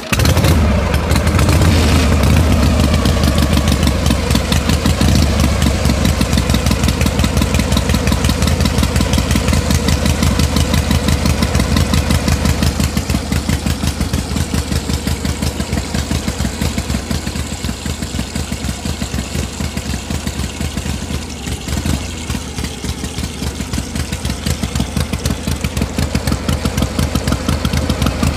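Small diesel water-pump engine cuts in suddenly and runs steadily at idle with a fast, even chugging.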